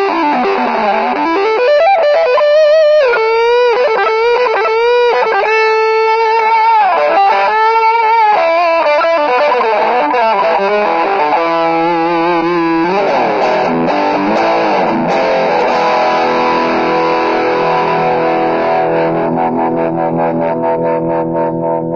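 Maison Les Paul-style electric guitar played through effects: a lead line of bent, wavering notes with heavy vibrato, then a quick run of repeated notes and a held chord left ringing out.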